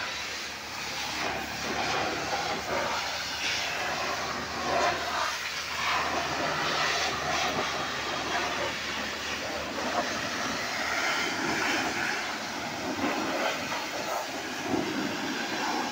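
High-pressure washer spraying a jet of water onto a motorcycle, a steady spray with the washer's pump running underneath.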